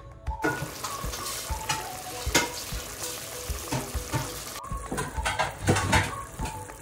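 Tomato sauce with chicken and mushrooms sizzling and bubbling in a pan, starting about half a second in, with sharp pops now and then. Soft background music plays underneath.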